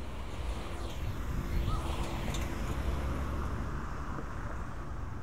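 Street traffic: a vehicle passing, its noise swelling about a second in and fading again over a steady low rumble.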